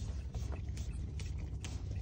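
Basset hound puppy licking whipped cream out of a paper cup: irregular wet lapping and smacking, over a steady low hum.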